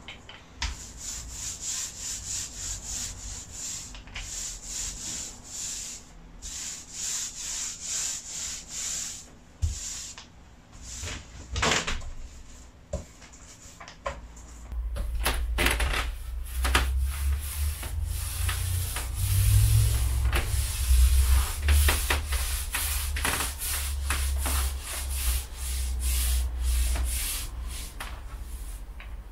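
Small paint roller rolled back and forth over a flat board, laying on a coat of dark grey paint mixed with varnish: a steady run of rubbing strokes. There is a short break with a few knocks about halfway through while the roller is reloaded from the tray, then the rolling resumes louder, with a low rumble under it.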